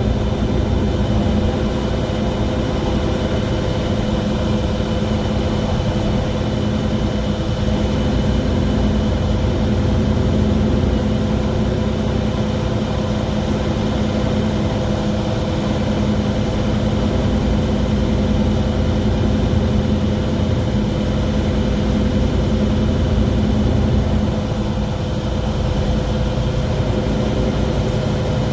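Mercedes-Benz Citaro G articulated bus running with a loud, strange noise: a steady drone with several constant whining tones over it, unchanging in pitch, dipping slightly in loudness about 24 seconds in.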